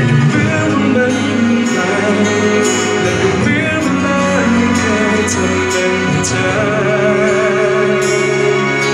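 Thai pop ballad performed live and amplified: steady backing music with guitar, and a man's singing voice holding wavering notes over it.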